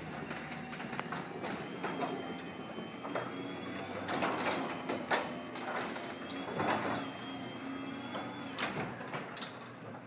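LiftMaster belt-drive garage door opener running as it raises an aluminum sectional garage door: a quiet, steady hum with a faint high whine, and scattered light clicks and rattles from the moving door.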